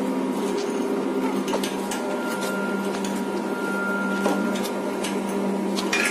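Steady mechanical hum with a few sharp clicks and knocks of steel frame parts being handled and fitted together during assembly of a printer stand, one louder knock about four seconds in.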